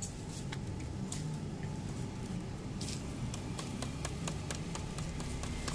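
Kitten eating from a bowl of dry kibble and wet fish food: a run of small crunching clicks, thicker in the second half, over a low steady background rumble.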